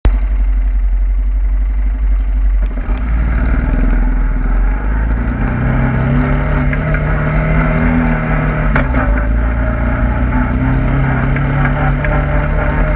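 Engine of a small handlebar-steered off-road vehicle being ridden over a rough dirt track. Its pitch climbs from about five seconds in, drops briefly about nine seconds in, then climbs again, over a heavy low rumble, with a few knocks from bumps.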